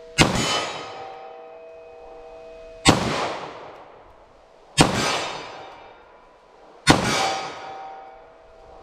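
Four .40 S&W pistol shots, about two seconds apart. Each is followed by the steel silhouette target ringing a steady metallic tone that fades out over the next second or two.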